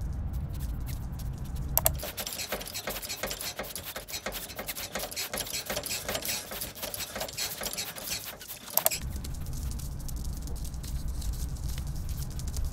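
Hedgehogs' small feet pattering on a wooden plank floor. A sharp light-switch click about two seconds in cuts off a low hum and the pattering becomes dense and busy; a second click near nine seconds brings the hum back and the pattering thins out.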